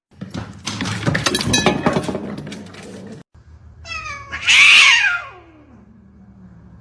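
A cat meowing once, a long drawn-out meow that falls in pitch, about four seconds in. Before it, a clatter of knocks and rustling that cuts off suddenly at about three seconds.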